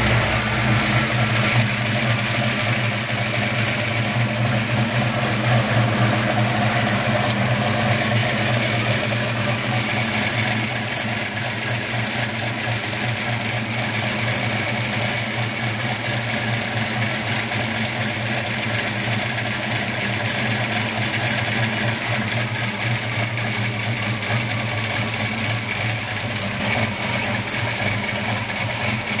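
V8 engine idling steadily with its valve cover off, the roller rocker arms and valvetrain chattering with a fast, even ticking over the engine's note. The owner thinks the rockers chatter too much.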